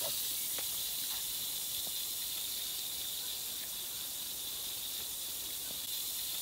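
Steady hiss of outdoor background noise, with a few faint light ticks.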